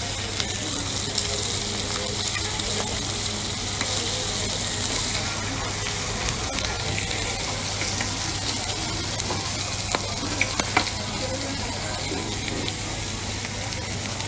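Slices of meat sizzling on a hot flat-top griddle (plancha): a steady frying hiss, with a few short clicks about ten seconds in.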